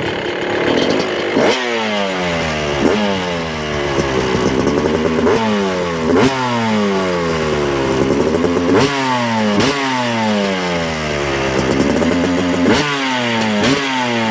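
Yamaha YZ250 two-stroke single-cylinder dirt bike engine with an FMF exhaust, blipped about a dozen times. Each throttle blip rises sharply, then the pitch falls back toward idle.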